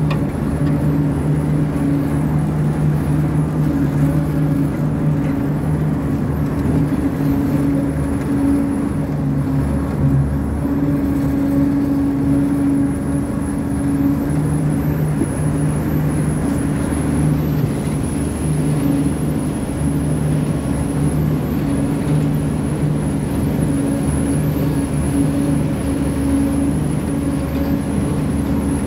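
Old combine harvester's engine running steadily: a constant low hum with a couple of unchanging pitches and a low rumble.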